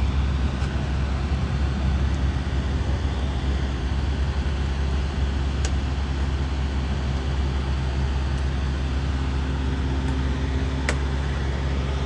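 Steady low rumble of a motor vehicle's engine and road noise, with a couple of faint short clicks.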